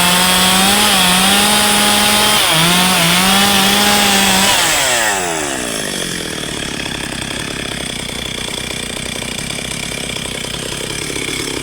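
Engine running at a steady, high pitch that wavers a little, then falls in pitch and gets quieter about five seconds in, leaving a lower, steady engine rumble.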